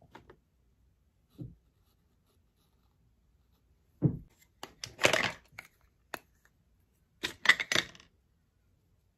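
Makeup being handled at close range: a soft knock about 4 s in, then two clusters of small plastic clicks and short scrapes as a plastic blush compact is picked up and opened along with a brush.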